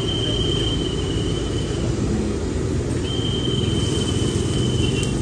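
City street ambience dominated by a steady low traffic rumble. Over it a thin, high, steady tone sounds, stops about two seconds in, and comes back about a second later.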